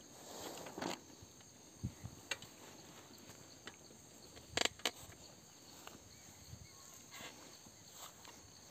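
Mountain bike rolling slowly through a wet, grassy rut: faint tyre and trail noise with a few sharp clicks and knocks from the bike, the loudest about four and a half seconds in.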